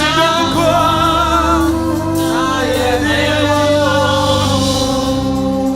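Gospel worship song: voices holding long, wavering sung notes over steady sustained accompaniment chords.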